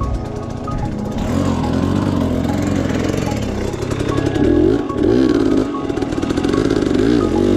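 Dirt bike engine revving, its pitch rising and falling repeatedly with the throttle, strongest in the second half.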